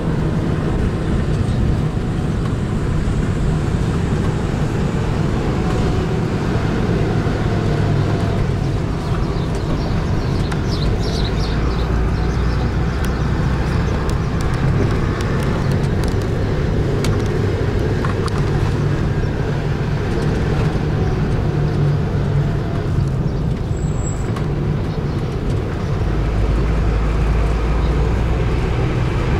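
Open-top sightseeing bus driving along a street: steady engine rumble and road noise heard from the top deck, with passing traffic.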